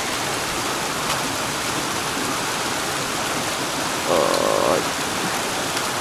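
Shallow rocky stream running steadily over stones, with a short pitched call about four seconds in.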